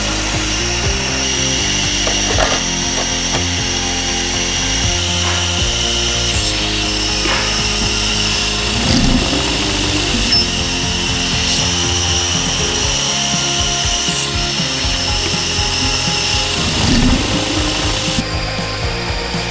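A metal drilling machine running with a steady high whine as it works steel scissor stock, with a few knocks, over background music.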